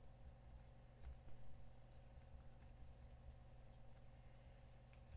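Near silence: a low steady electrical hum with faint clicks and soft rustles of trading cards being handled, a little louder about a second in.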